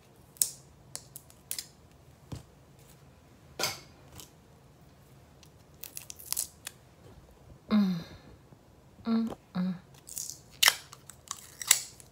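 Scissors snipping: a scattered series of sharp separate snips and clicks, with a few short murmured sounds from a person about eight and nine seconds in.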